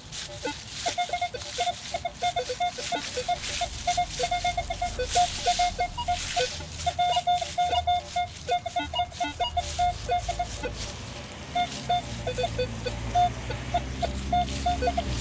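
Minelab Equinox metal detector chattering with rapid, irregular short beeps at a couple of pitches as its coil is swept over ground crowded with buried metal pipes and junk, with scuffing from the sweep.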